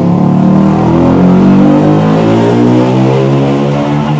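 Motorcycle engine passing close by on the street, loud, its pitch rising as it speeds up and then levelling off.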